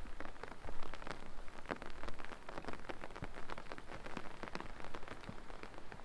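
Light rain pattering: a dense, irregular patter of small drops, many taps a second.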